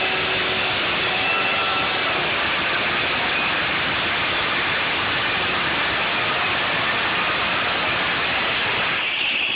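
Chainsaw running at full throttle while cutting through a panel door, heard as a loud, dense, steady noise that barely changes until a slight shift near the end.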